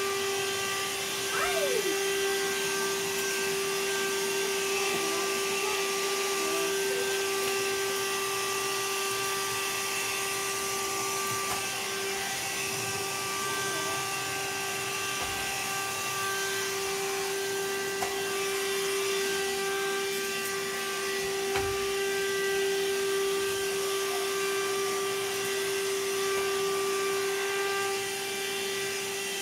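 Vacuum cleaner running steadily: a constant motor hum at one pitch over an even rush of air, with a few soft bumps.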